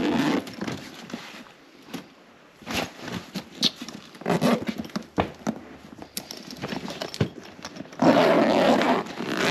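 Zipper of a fabric travel bag being pulled and the bag and its contents rustling as hands rummage inside, in a few short bursts with small clicks, the loudest and longest lasting about a second near the end.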